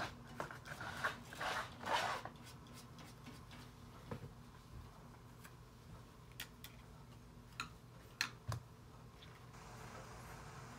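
Quiet painting and handling sounds: a short scratchy rub of a paintbrush on paper about two seconds in, then scattered light taps and clicks as the brush is handled, over a faint steady hum.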